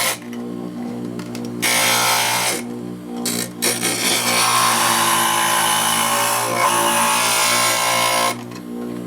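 Small power grinding tool running steadily, grinding in stretches with short breaks between passes, taking the last bit off a part so it will fit.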